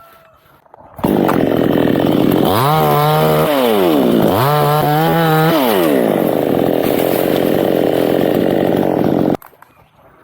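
Chainsaw running, its engine pitch dipping and climbing back twice. It starts suddenly about a second in and cuts off abruptly near the end.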